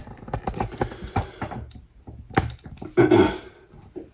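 Handling noise from a camera being picked up and moved in close: a quick run of small clicks and taps, a louder knock about two and a half seconds in, and a short rustle around three seconds.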